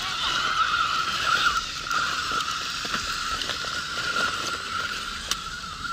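Small electric motor and gears of a radio-controlled crawler truck whining steadily as it drives over rocks, with scattered light clicks and knocks of the chassis and tyres on stone.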